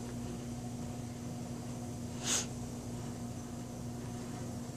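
Quiet room tone with a steady low electrical hum, and a single short breathy hiss a little over two seconds in.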